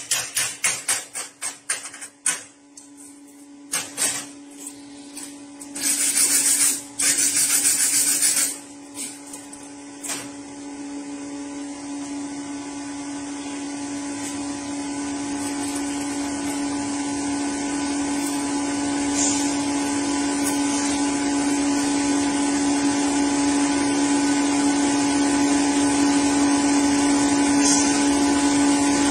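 Rapid metal knocks, like hammer blows chipping weld slag, then a couple of loud hissing bursts. After that a power tool's motor runs with a steady hum that slowly grows louder.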